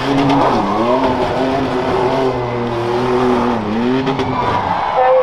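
Race pickup truck's engine revving hard as it is driven over dirt jumps on a rough truck course, its pitch repeatedly dropping and climbing again as the throttle comes off and goes back on.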